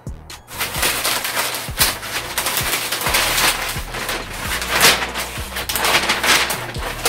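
Large sheet of sublimation transfer paper rustling and crackling as it is handled, with sharp crinkles throughout.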